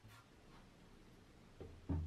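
A few soft knocks and a light click, the loudest a dull low knock near the end, over quiet room tone.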